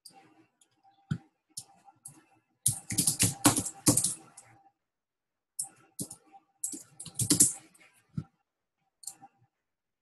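Typing on a computer keyboard, in two quick runs of key clicks: a longer one a few seconds in and a shorter one later. A few single clicks fall between and around them.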